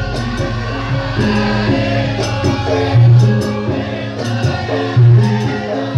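Live Javanese gamelan music with singing, accompanying a lengger dance: layered melodic notes moving in steps, with louder low strokes about three and five seconds in.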